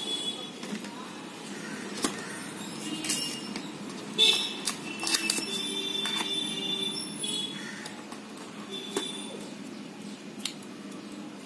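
Handling noise from a cardboard smartphone box and its accessories: scattered clicks, taps and rustles as the charging cable and charger are lifted out of the box's insert, with a few short high squeaky tones around the middle.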